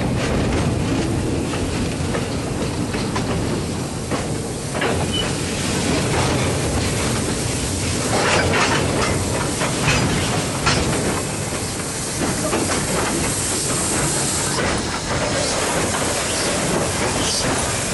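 Steam train with BB18¼ class locomotives and tank wagons rolling past close by: a steady rumble of wheels with knocks and clicks over the rail joints. A hiss of steam comes about three-quarters of the way through.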